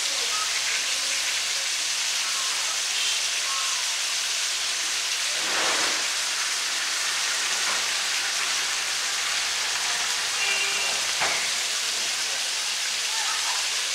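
Eggplant chunks frying in hot oil in a large wok over a fire, a steady sizzle. There is a brief louder swish about halfway through and a short tap about eleven seconds in.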